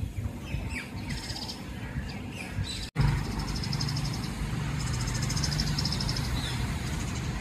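Pied mynas calling: runs of quick, repeated high chirps that start after about three seconds, over a steady low rumble. Before that, only faint scattered chirps from the feeding flock of parakeets and mynas.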